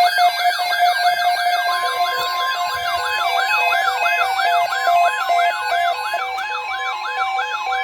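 Weather alert radios sounding their alarms together: a siren-like warble that rises and falls about three times a second, over steady and pulsing beep tones. A steady tone near 1 kHz joins about two seconds in, marking a severe thunderstorm watch alert.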